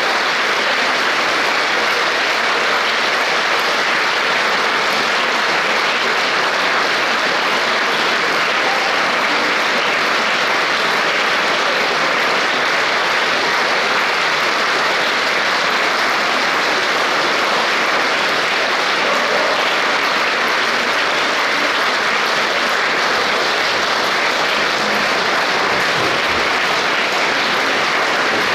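Large concert-hall audience applauding steadily, an unbroken, even wash of clapping that neither builds nor dies away.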